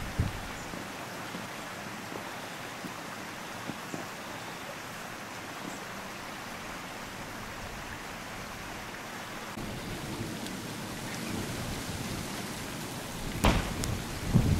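Steady rushing hiss of a small stream flowing between snowy banks. Near the end, wind buffets the microphone in a couple of low thumps.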